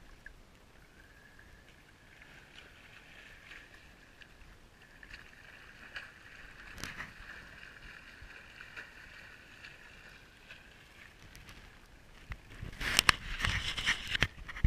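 Water lapping and sloshing against a camera housing at the water's surface, muffled and mostly faint with a few small clicks, then loud irregular splashing near the end.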